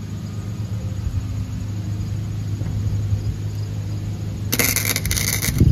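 Wire-feed welding gun striking an arc for about a second near the end, a short crackling tack weld on the mower deck's bracket, over a steady low hum.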